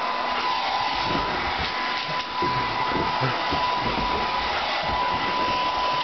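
Hair dryer running: a steady rush of air with a constant high motor whine, which stops at the very end.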